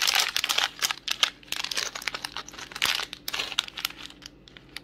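Thin clear plastic parts bag of a Mega Construx kit crinkling and crackling as it is squeezed and pulled at to open it, busiest in the first half and dying away near the end.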